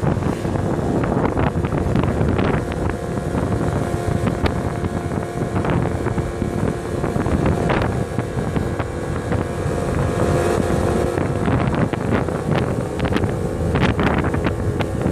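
Kymco quad bike's engine running steadily as it rides along, with wind buffeting the microphone in gusts.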